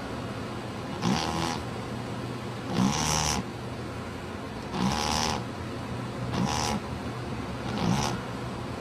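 Snoring: five rattling, rasping snores, about one every one and a half to two seconds.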